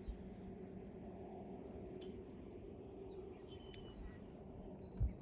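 Wild birds chirping and calling from the riverside trees: scattered short, high chirps, with a low steady background rumble beneath them. A low thump near the end is the loudest moment.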